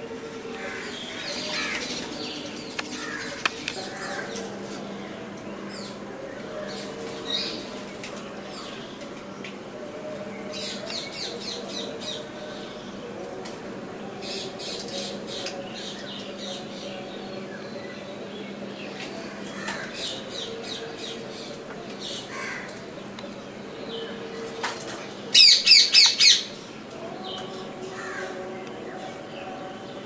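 Indian ringneck parakeet calling: scattered chirps and rapid chattering runs, then a quick run of about four loud, harsh squawks about 25 seconds in. A steady low hum sits underneath.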